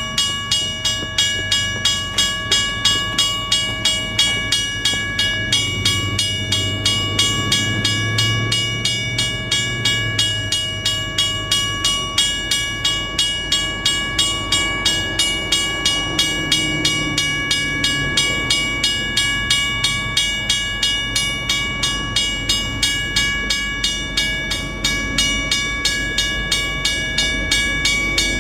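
Cast-iron WRRS mechanical crossing bell ringing steadily, about two strokes a second, each stroke leaving a clear ringing tone, as the crossing warning is active. A low rumble sits underneath at times.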